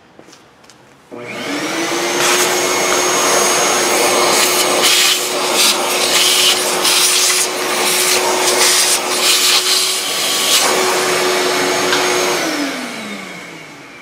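Shop vacuum switched on about a second in, running steadily as it sucks metal drill shavings out of a drilled bolt hole, then switched off near the end and winding down with falling pitch.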